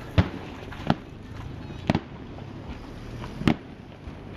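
Aerial fireworks bursting: four sharp bangs at uneven intervals over a steady background din.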